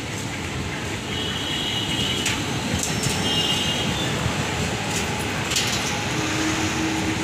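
ICF passenger coaches rolling past a platform: a steady rumble of wheels on rail, with a few sharp clanks and two brief high squeals.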